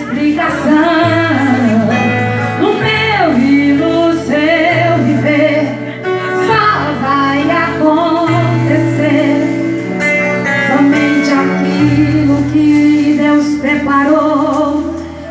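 A woman singing a Portuguese gospel worship song live, with long ornamented runs, over a band whose bass and keyboard hold sustained notes that change every second or two.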